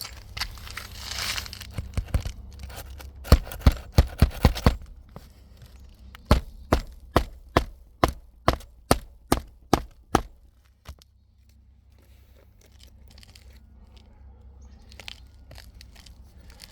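Claw hammer driving roofing nails through asphalt shingles: a quick run of about six blows, then about ten evenly spaced blows, two or three a second. A brief rustle comes about a second in.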